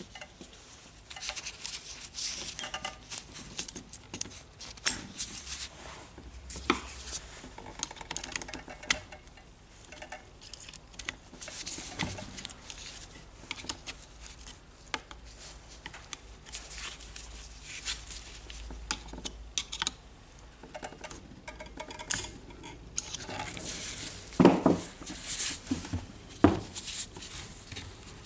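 Gloved hands handling and fitting the metal and rubber parts of a DeWalt DCH133 rotary hammer's SDS-Plus chuck: irregular small clicks, light metallic clinks and scraping, with a few louder knocks near the end.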